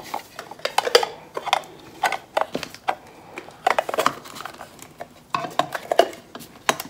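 Hard plastic snow-globe parts clicking and knocking as a clear dome and its base are handled and fitted together: an irregular string of sharp taps.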